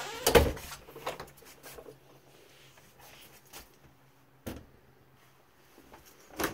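An interior wooden door in a motorhome shutting with a knock about half a second in, followed by a few lighter clicks and knocks, over a faint steady low hum.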